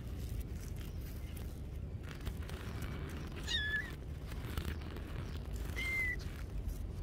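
Kittens mewing: two short, high-pitched mews, one about halfway through and one near the end, over a steady low rumble.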